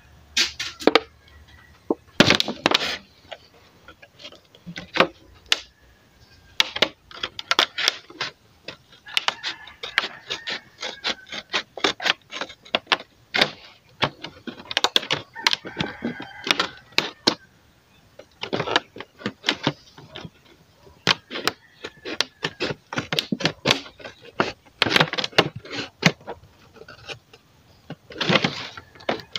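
Scissors snipping and crunching through the wall of a clear plastic bottle, cutting out an opening: a long run of irregular sharp clicks and crackles with brief pauses.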